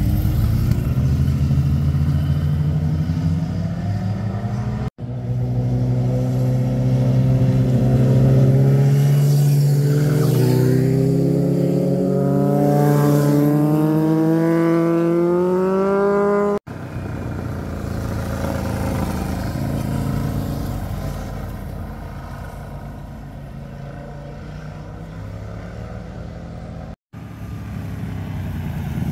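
Motorcycles passing through a hairpin bend, in several short clips joined by abrupt cuts. In the longest clip an engine pulls out of the bend with its pitch rising steadily for several seconds as the bike accelerates. In the next, a quieter bike passes and fades away.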